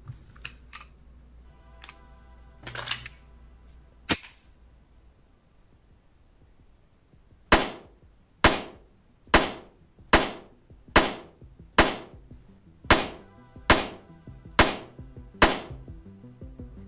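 Pistol shots: ten fired at a steady pace, a little under one a second, starting about halfway in, each a sharp report with a short ringing tail. A few scattered clicks come earlier.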